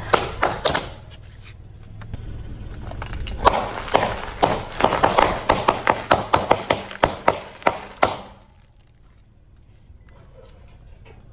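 Car tyre rolling over and crushing brittle objects: a few sharp cracks, then a fast run of snapping and crunching, about four cracks a second, over the car's low engine rumble, stopping suddenly about eight seconds in.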